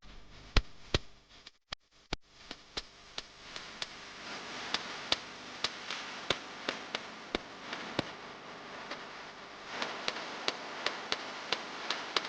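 A steady series of sharp ticks or clicks, about two to three a second, over a faint hiss that comes in after the first couple of seconds.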